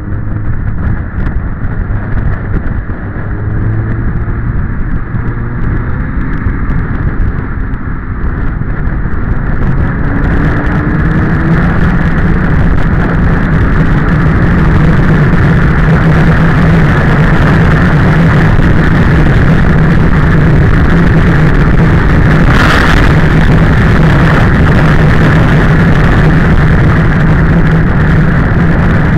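Motorcycle engine heard from the bike, with wind on the microphone. For the first ten seconds or so the engine note is lower and rises and falls. Then the engine runs at steady revs under load, and the wind noise grows louder. A brief hiss comes about two-thirds of the way through.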